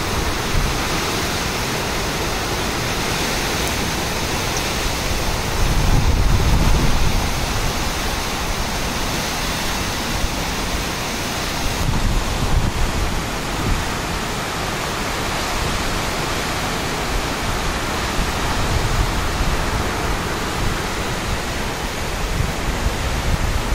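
Cyclone rain and wind: a steady heavy rush of driving rain with strong gusts, one louder gust about six seconds in.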